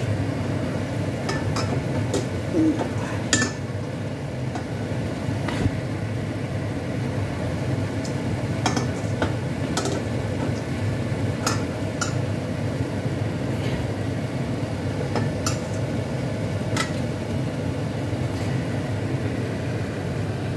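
Mixed vegetable curry cooking in a frying pan: scattered pops and clicks over a steady low hum.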